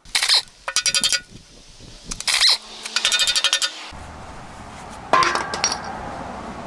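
Hand tools and metal parts working on a connecting rod cap of a Ford 400 V8 from underneath, being unbolted to inspect the rod bearing: short spells of quick metallic clicking in the first four seconds, then a few ringing metal clinks about five seconds in.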